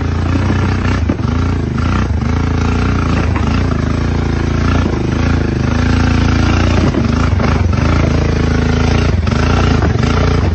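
Small ATV engine running under load as it climbs wooden steps, the revs rising and falling again and again, with a few sharp knocks of the tyres hitting the steps.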